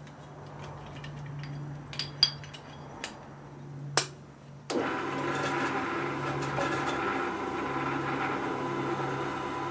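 A few sharp metal clanks as a steel plate and locking grips are set on the pillar drill's table. About five seconds in, the pillar drill's motor switches on and runs steadily, ready to drill the plate.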